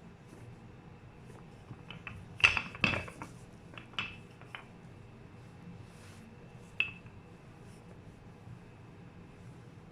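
Kitchenware clinking as it is handled: a quick cluster of knocks and clinks about two and a half seconds in, then single clinks about four and seven seconds in, each with a short ring.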